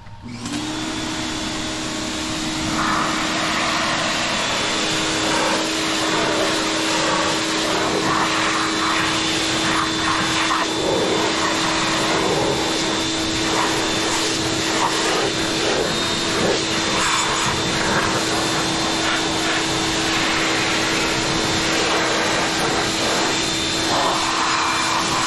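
Pressure washer starting abruptly and then running steadily, its motor and pump holding one steady hum under the hiss of the water jet, which spatters and splashes as it sweeps across a golf cart's bare metal frame and body panels.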